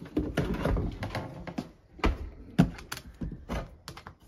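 Small sheet-metal lock box being handled and its lid worked loose by hand: a run of metal clicks, taps and rattles, with a sharper knock about two and a half seconds in.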